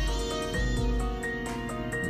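Background music with steady held notes and no speech.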